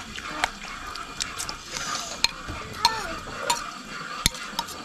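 Metal spoon stirring a raw blood mixture with minced meat in a ceramic bowl, making irregular clicks and scrapes against the bowl.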